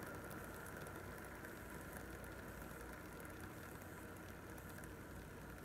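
Two metal gear fidget spinners spinning freely, a faint steady whirr and fine rattle of their bearings and gear-toothed arms, slowly dying away as they lose speed.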